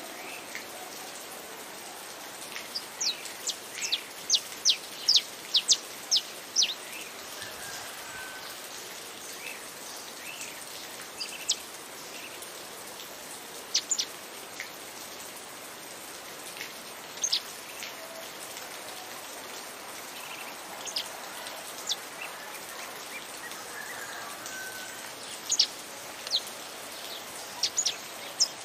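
Saffron finch singing in scattered phrases of short, sharp falling notes, with pauses between phrases, over a steady hiss of rain.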